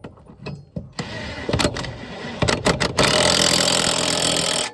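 A power tool running in short goes while fastening a lawn mower blade back onto the deck. It carries sharp clicks, then runs loud and continuous for the last second and a half before stopping abruptly.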